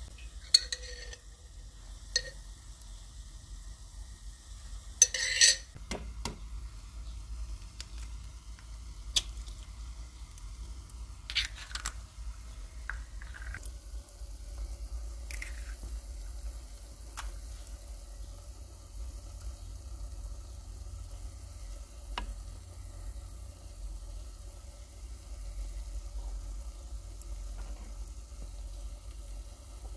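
Tomato sauce sizzling gently in a metal pan over a wood fire, with several sharp knocks of eggs being cracked on the pan and dropped into the sauce, most of them in the first half.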